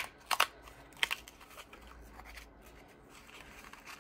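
A cardboard advent calendar door being pulled open and a tea bag taken out: a handful of sharp snaps and tearing sounds in the first second or so, then faint paper rustling.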